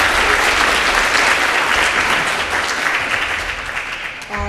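Audience applause from a conference hall crowd, dense and steady, tapering off slightly near the end.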